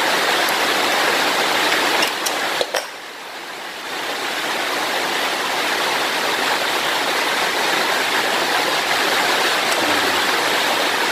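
Heavy rain falling on the roof overhead, a loud steady hiss not muffled by any ceiling. A few sharp clicks come about two seconds in, then the rain noise dips for about a second before returning to full level.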